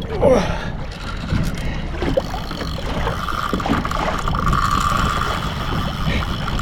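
Wind buffeting the microphone on a kayak at sea, a low rumbling noise, with water moving against the hull. About halfway through, a steady whine runs for roughly two seconds.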